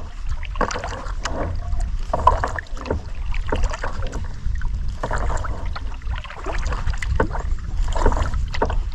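Kayak paddle strokes dipping and splashing in lake water, with water dripping off the blades, over a steady low rumble.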